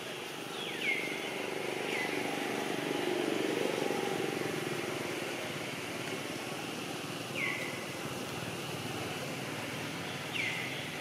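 Outdoor ambience with a low engine-like rumble that swells over the first few seconds and then fades, and four short high chirps that drop in pitch, spread through it.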